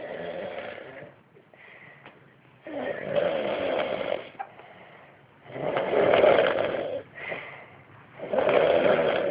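A man snoring loudly, one snore about every two and a half to three seconds: four in all, the first weaker than the rest, with softer breaths between.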